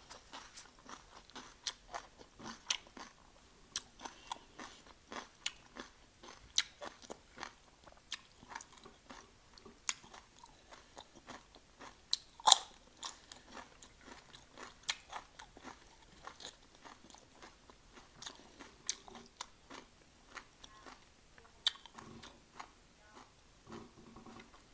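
Close-up crunching and chewing of crisp raw vegetables: a run of irregular sharp crunches, with one louder bite about halfway.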